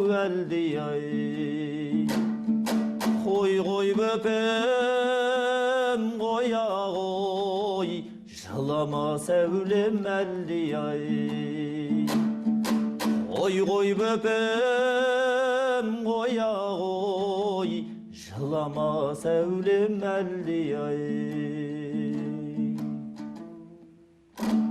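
Kazakh folk song sung solo with long, wavering held notes, over instrumental accompaniment with plucked strikes and a steady low note; the phrases pause briefly about 8 and 18 seconds in.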